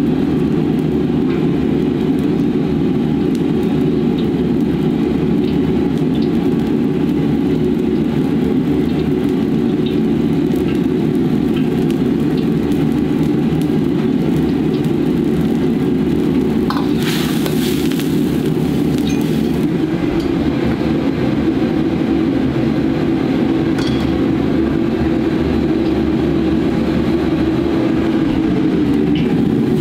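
Steady low roar of a commercial gas wok stove's high-pressure burners, with a brief hiss about seventeen seconds in.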